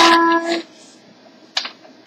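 A child's voice holding one sung note, which stops about half a second in; then quiet room tone with one brief light click near the end.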